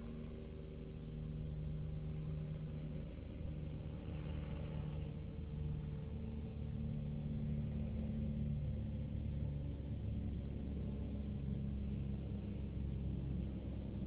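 A car engine running with a low rumble, its pitch shifting in small steps, growing a little louder over the first few seconds and then holding steady.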